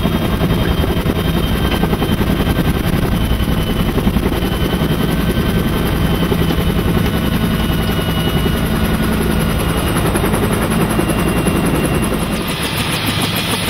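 Bell UH-1 Huey helicopter running with its rotor turning, heard from inside the cockpit: a steady low drone and rapid rotor pulsing under the thin whine of its Lycoming T53 turboshaft. About a second before the end the sound shifts, the low drone dropping and a brighter hiss coming in.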